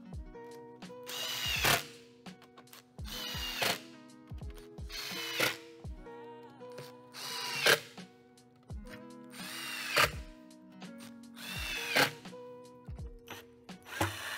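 Cordless drill driving screws into a flat-pack cabinet panel: six short bursts about two seconds apart, each spinning up as a screw goes in. Background music with steady notes plays underneath.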